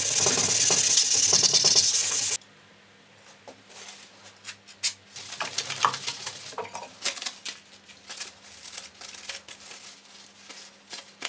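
Sandpaper rubbed by hand over the flat of an O1 tool steel knife blade: a steady scratching that stops abruptly about two seconds in. Then much quieter rustling and small clicks of a paper towel wiping the blade.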